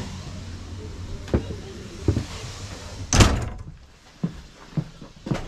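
A wooden railway carriage door shut with a single loud bang about three seconds in, after which the steady background noise is much quieter. A few short knocks follow at about half-second intervals.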